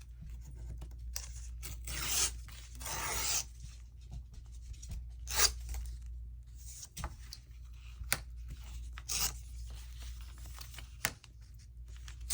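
Paper being handled and ripped: two longer rasping rips about two and three seconds in, then scattered light taps and paper rustles.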